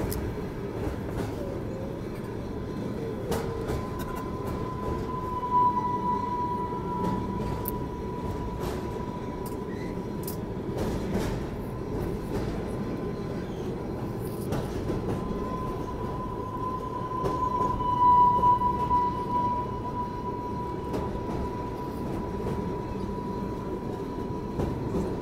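Train rolling across a steel truss railway bridge: a steady low rumble with scattered sharp clicks. A high steady whine runs over it and swells twice, about six seconds in and again near eighteen seconds.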